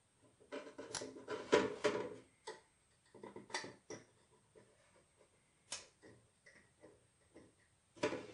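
Irregular light clicks and taps of hands handling and pressing white styrene plastic model-kit tubes, busiest between about half a second and two seconds in.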